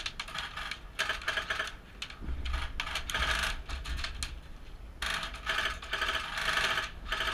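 Airsoft guns firing: scattered single shots at first, then long rapid full-auto bursts from about two seconds in.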